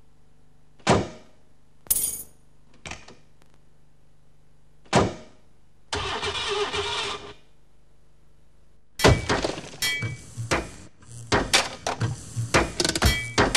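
Sound collage of samples recorded in a car scrapyard: single sharp metal bangs a second or two apart over a low steady hum, a noisy burst of about a second and a half around six seconds in, then a dense run of clanks and knocks from about nine seconds.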